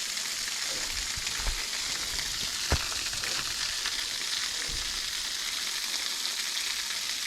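Waterfall and cascade making a steady rushing hiss of falling water. There is a single sharp click about three seconds in.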